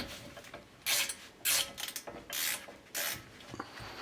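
Ratchet wrench driving the caliper bolts back in, worked in short strokes with a rasping click on each swing, about one every half second.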